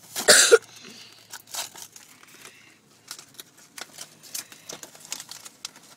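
Plastic blister packaging and its cardboard backing being pulled and torn open by hand: a loud rip about half a second in, then scattered crinkles and crackles of plastic being handled.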